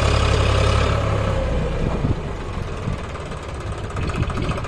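Tractor's diesel engine running, loud for about a second and a half, then dropping to a quieter, lower running.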